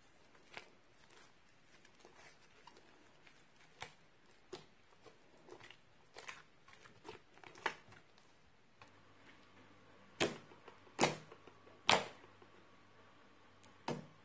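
Foamy glue-and-dish-soap slime being squeezed and pressed by hands, giving scattered short sticky crackles and pops. Three louder pops come close together about two thirds of the way in.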